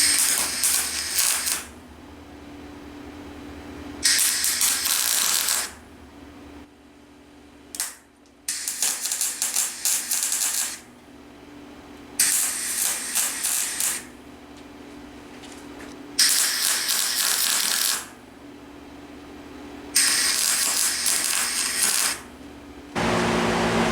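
Electric welder laying short tack welds on a steel bracket: six bursts of sizzling crackle, each about two seconds long, with pauses between them.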